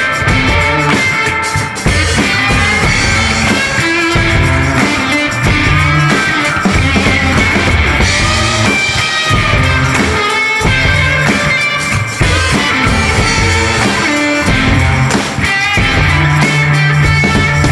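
Blues-rock music with no singing: electric guitar and drum kit playing an instrumental break.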